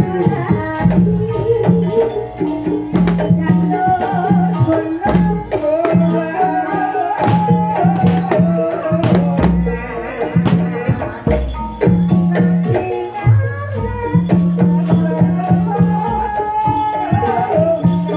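Live barongan music: hand drums struck rapidly, over a repeating held low tone, with a wavering melody line above.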